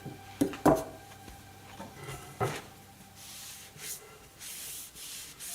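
A few sharp knocks, as of a workpiece or tool being handled and set down, then from about three seconds in, repeated strokes of sandpaper rubbing on the hammer.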